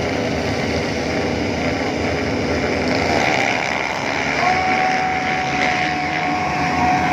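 A pack of motocross dirt bikes revving together at the start gate, then launching off the line and pulling away a few seconds in. A steady high tone joins the engine noise about four and a half seconds in.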